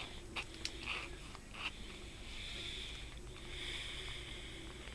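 Quiet room with faint breathing and a few light clicks in the first two seconds.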